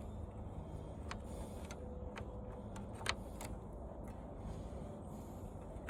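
Faint scattered clicks and taps of hands working a part loose on an old TV set, over a low steady hum.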